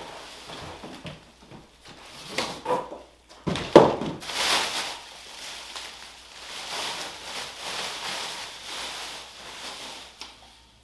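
Unpacking a telescope tripod from its cardboard box: irregular scraping and rustling of cardboard and packing, with a sharp knock just under four seconds in.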